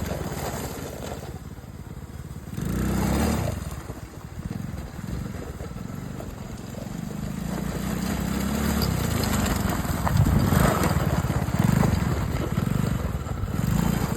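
A small ATV engine running, its pitch and loudness going up and down with the throttle, at its loudest about ten seconds in.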